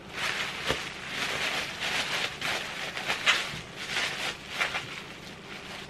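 Bubble wrap and plastic wrapping crinkling and rustling as a part is unwrapped by hand, a busy stream of small irregular crackles.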